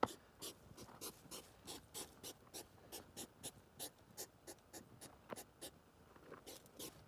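Hedgehogs huffing and snorting in quick rhythmic breaths, about three a second: the courtship noise of the mating season. A sharp click comes right at the start and another about five seconds in.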